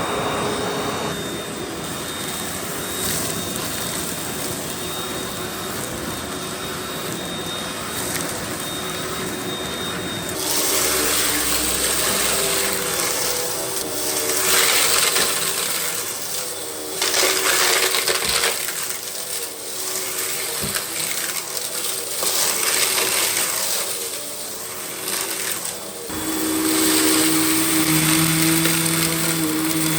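Russell Hobbs Athena Pet vacuum cleaner running, its motor tone steady but stepping to a different pitch about ten seconds in and again near the end, with a hissing rush of air that swells and fades as the cleaner is worked.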